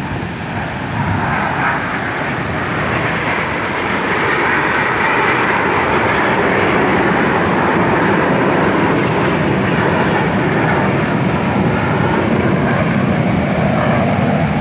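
Display aircraft flying overhead: loud engine noise that builds over the first few seconds and then holds steady.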